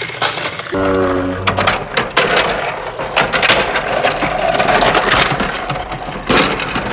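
Battery-powered Thomas TrackMaster toy engine running along plastic track, its small motor whirring under many sharp clicks and clatters as it rides over the tilting track pieces. There is a short low hum about a second in.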